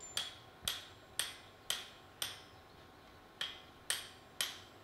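Hammer blows driving a drift into the red-hot eye of a forged axe head on an anvil to open the eye out. Eight sharp, ringing strikes about two a second, with a short pause midway.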